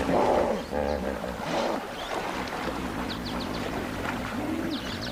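A large wild animal's low grunting calls, with short high bird chirps about three seconds in and again near the end.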